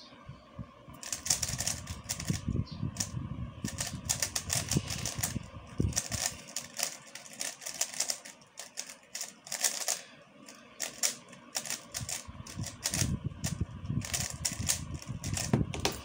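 A plastic 3x3 speedcube being turned fast by hand: quick runs of clattering clicks from the layers snapping round, starting about a second in, with short quieter gaps between bursts.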